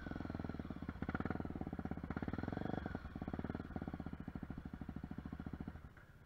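Trail motorcycle's single-cylinder engine idling close by with an even, rapid thump, a little louder through the first few seconds, then dropping away near the end.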